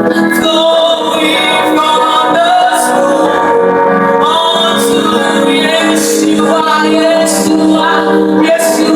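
Worship music: singing voices, mostly a woman's, held over sustained instrumental chords, with soft high percussion strokes about once a second.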